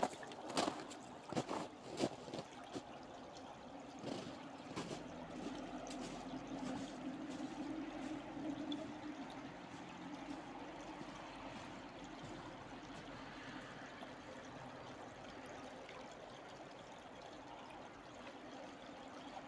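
Small stream of water trickling and flowing steadily. Over the first three seconds there are a few sharp steps or knocks, then only the water.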